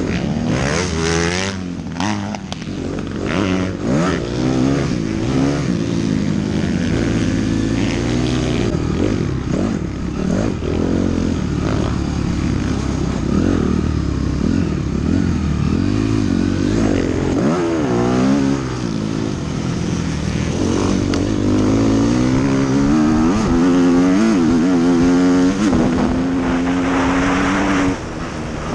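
Off-road race motorcycle's engine heard from on board, its pitch rising and falling as the rider works the throttle, then holding steadier at higher revs in the last third.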